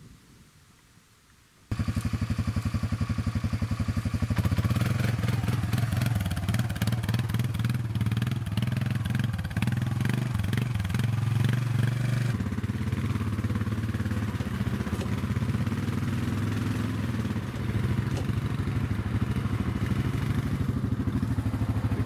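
ATV engine running steadily, cutting in suddenly about two seconds in, with frequent rattles and knocks as the quad rides over a rough grassy trail; the engine note shifts a little about twelve seconds in.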